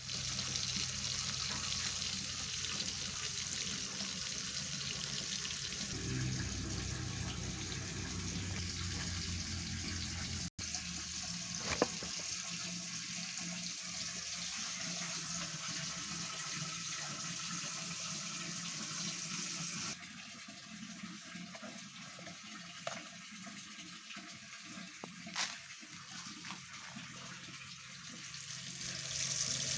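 Steady hissing noise with a low hum underneath, broken by a few sharp clicks; the sound drops abruptly about two-thirds of the way in.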